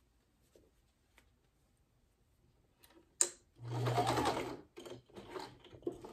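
Electric domestic sewing machine stitching through two layers of cotton fabric in short runs. After a few quiet seconds, a sharp click about three seconds in is followed by a steady run of about a second, then several shorter bursts of stitching as the seam is brought up to a corner.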